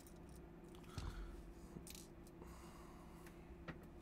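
Faint clicks and light handling of small metal watch-strap pins being picked through and tried, with a soft knock about a second in, over a low steady hum.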